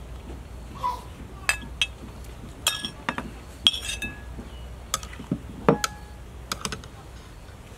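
Metal spoon clinking and scraping against ceramic dishes as meat is spooned from a plate into a bowl of soup. There are about a dozen sharp clinks, each with a short ring, coming irregularly.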